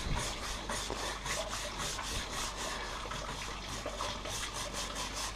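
Scrubbing pad rubbed back and forth over a painted metal panel wet with caustic paint stripper, in quick, even strokes. The scrubbing agitates the stripper to lift the softened paint.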